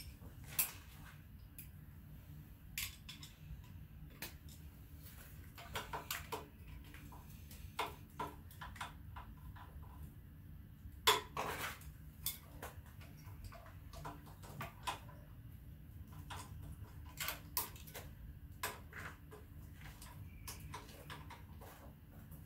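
Scattered metallic clinks and clanks of hand tools and loose parts on an AMC 4.2-litre engine being stripped down, irregular and spaced a second or more apart, the loudest about 11 seconds in. A steady low hum runs underneath.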